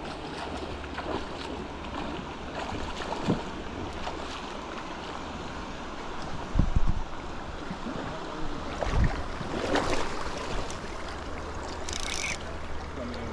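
Shallow creek current rippling, with wind rumbling on the microphone. There are a couple of dull thumps about halfway through and a brief hiss near the end.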